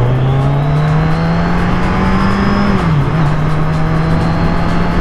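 Kawasaki Z1000's inline-four engine pulling under acceleration, its note climbing steadily, then dropping sharply about three seconds in as the rider shifts up, and holding a steady cruise after. Wind rushes over the microphone throughout.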